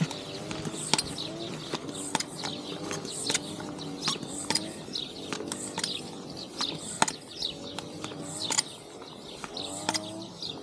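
Air pump being worked by hand to inflate a punctured motorcycle tyre: repeated strokes, each giving a short squeaking tone that bends in pitch and a sharp click, roughly once a second. Birds chirp high above it.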